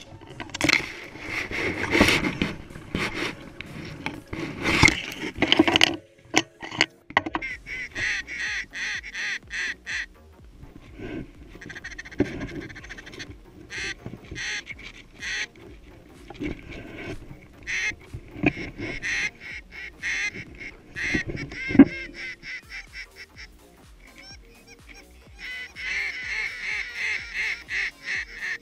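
A large flock of geese honking, a dense chorus of overlapping calls that swells and fades in waves. There is a sharp, louder knock about three-quarters of the way through.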